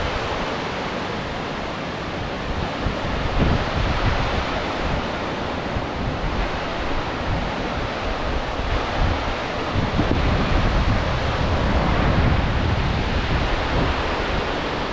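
Steady rush of a waterfall pouring partly beneath sheets of ice, with gusts of wind buffeting the microphone and rumbling unevenly throughout.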